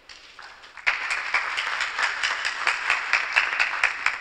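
Audience applauding, the clapping starting about a second in and beginning to die away near the end.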